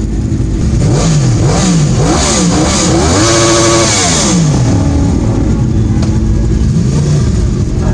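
Sport bike engine revved from idle in a few quick blips, then held high for a moment and let fall back to a steady idle.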